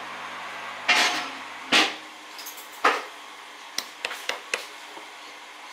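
Ceramic measuring cup knocking against a glass mixing bowl as flour is tipped out of it: three sharp knocks about a second apart, then a quick run of lighter clicks.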